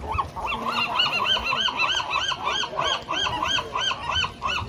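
A gull giving its long call: a fast, even series of loud yelping notes, each rising and falling in pitch, about four a second.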